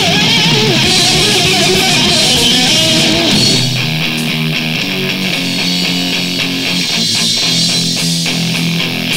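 Electric guitar music from a 1988 death/thrash metal demo tape: wavering, bending lead lines for the first few seconds, then held low notes.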